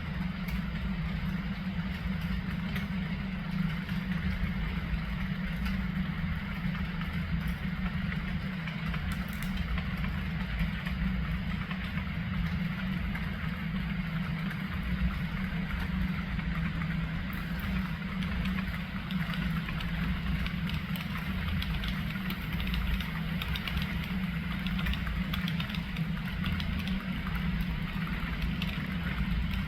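Steady low mechanical hum with a rumble beneath it, running evenly without change, like an engine at idle.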